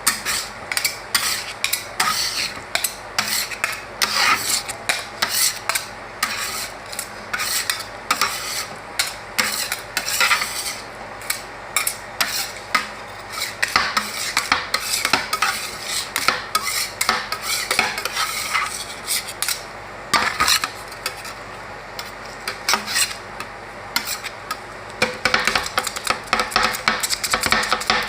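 Metal spatulas scraping and tapping on the frozen steel plate of an ice cream roll machine, with irregular quick clicks and scrapes. The sounds ease off for a few seconds about three-quarters of the way through, then pick up again.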